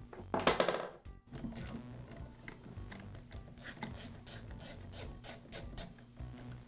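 Small socket ratchet clicking steadily, about four clicks a second, as it loosens the nut that holds a chainsaw's air filter base. A short, loud scrape comes about half a second in.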